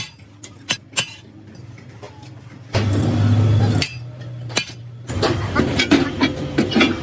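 Sharp metallic clinks and knocks from workshop work, with a low steady machine hum that comes in suddenly for about a second near the middle and returns under a quick run of knocks near the end.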